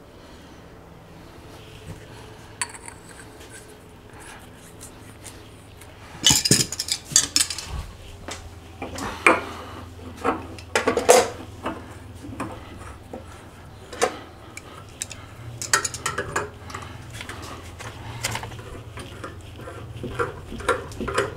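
Clinks, clicks and scrapes of brass pipe fittings being handled and screwed together with a metal hand tool, starting about six seconds in and coming irregularly, loudest in a clatter soon after they begin.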